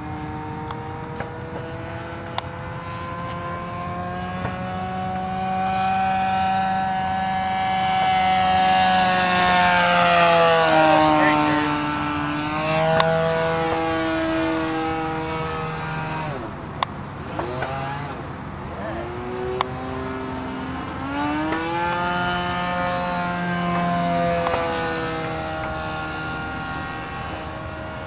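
Two-stroke 26 cc gas engine of a large RC model airplane running in flight, its propeller note rising and falling in pitch as the plane makes passes overhead. It is loudest about ten seconds in, with the pitch dropping as it goes by, and a second dip and rise later on.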